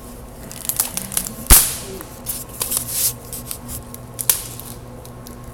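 Hands-on butchery of a lamb carcass on a work table: scattered clicks and scraping with one loud, sharp knock about a second and a half in, then quiet room hum for the last second or so.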